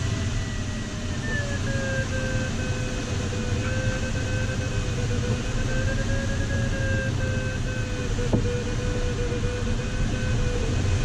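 Steady rush of air over a glider in flight, heard inside the cockpit, with an electronic variometer tone holding steady and wavering slowly up and down in pitch. A single click about eight seconds in.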